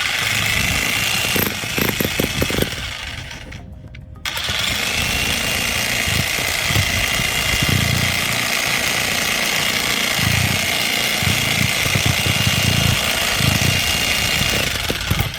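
Vevor 2200-watt electric jackhammer hammering, with a steady high whine over the hammering, as it works a bit that is stuck in the ground. It stops briefly about four seconds in, then starts again and runs steadily until just before the end.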